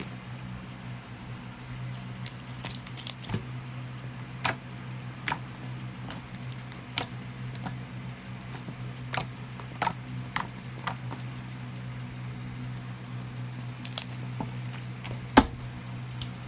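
Slime being squished and worked by hand, making irregular sticky clicks and pops, with one louder pop near the end.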